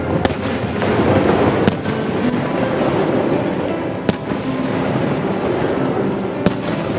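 Aerial fireworks display: shells bursting in several sharp bangs, the clearest about a quarter second in, near two seconds, around four seconds and near the end, over a continuous crackling rumble of other shells.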